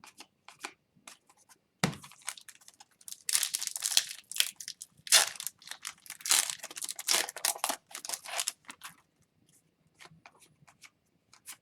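Hockey card pack wrapper being torn open and crinkled, with a dull knock about two seconds in and several seconds of tearing and crinkling after it. Light clicks of cards being handled come before and after.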